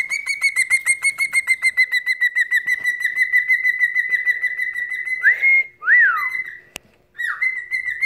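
Cockatiel whistling: a long, high trill of rapid pulses held on one pitch for about five seconds, then a couple of short swooping whistles. A single sharp click follows, and the trill starts up again near the end.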